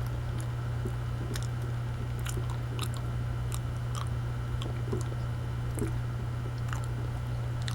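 Person chewing a mouthful of banana: soft, wet mouth sounds and small clicks, over a steady low hum.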